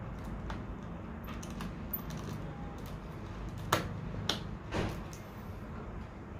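Hand-handling clicks and taps of laptop parts during a drive swap. A few light clicks come first, then three sharper clicks about half a second apart in the second half, the first the loudest, over a steady low hum.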